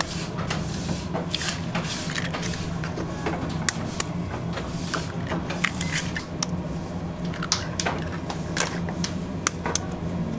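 Eggs being cracked one after another on the rim of a stainless steel mixing bowl: irregular sharp taps and shell cracks, with a steady low hum underneath.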